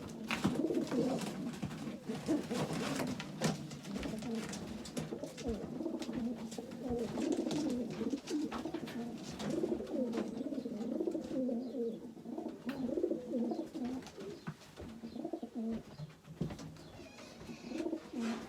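Many racing pigeons cooing at once, a continuous low, wavering chorus, with scattered sharp knocks and scuffles among them.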